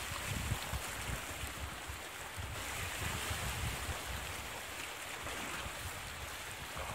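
Sea surf washing against a rocky shore as a steady hiss, with wind buffeting the microphone in irregular low rumbles.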